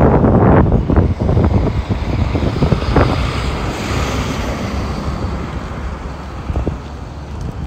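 A motor vehicle going by, with wind rumbling on the microphone; loudest in the first second, then gradually fading.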